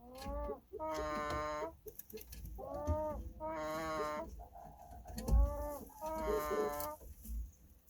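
A chicken snoring: a run of about six drawn-out pitched notes, each up to about a second long and coming roughly every second and a half, several rising in pitch at their start.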